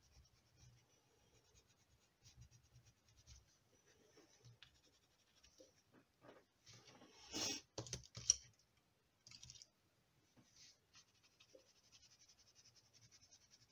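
Coloured pencil scratching lightly on watercolour paper in short shading strokes. A few louder knocks and rustles come about halfway through, while the hand is off the paper.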